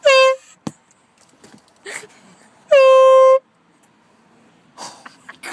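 Air horn blasted twice, each a single steady, shrill tone: a short blast at the start, then a longer one of about two-thirds of a second a couple of seconds later.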